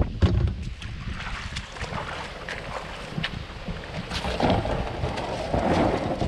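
Wind rumbling on the microphone over water, with scattered small splashes and drips around a small paddled boat on a river.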